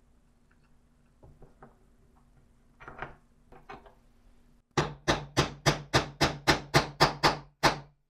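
A few light knocks, then a quick, even run of about eleven hammer taps on a steel rod, roughly four a second, driving a nut into the centre hole of a plywood disc; the taps stop suddenly near the end.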